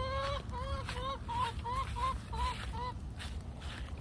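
Domestic hen calling: one longer rising note, then a quick run of about eight short, arched calls over the first three seconds, over a low rumble.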